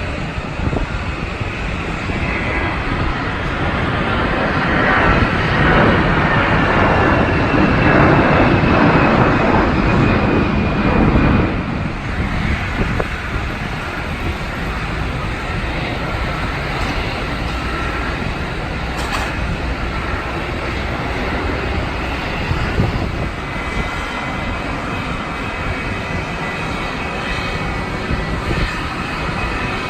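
Jet airliner engines running, with a faint high whine over a steady rush, swelling loudest from about 4 to 11 seconds. It drops suddenly about 12 seconds in to a quieter, steady jet noise.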